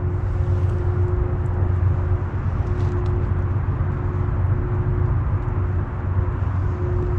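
Steady distant mechanical hum: a low rumble with a faint, unwavering tone over it, heavily amplified. Its source is unknown; it kind of sounds like a small airplane, and it is suspected to be an air-conditioning or heating fan unit.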